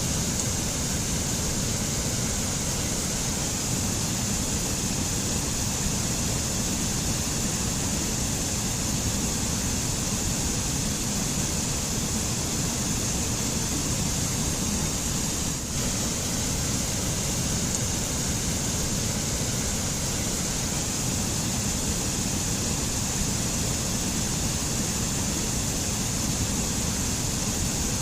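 White-water mountain stream rushing over rocks and spilling into pools, a steady, unbroken rush.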